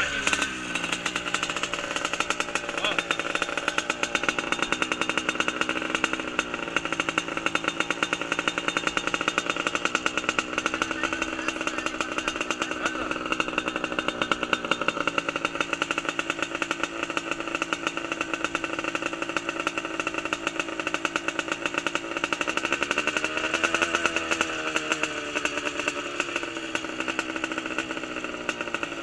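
Motorcycle engine running steadily at a fairly constant speed with a fast, buzzy firing beat. The engine speed briefly rises and falls about six seconds in, and again around twenty-four seconds.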